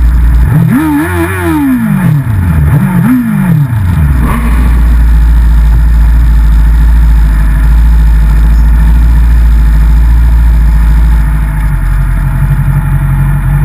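Race motorcycle engine blipped twice at low speed, the revs rising and falling, then settling into a steady idle.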